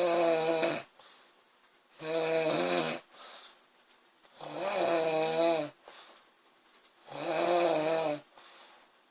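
A woman snoring loudly in a regular rhythm: four long snores about two and a half seconds apart, each lasting about a second with a fairly steady pitch, with faint breathing in between.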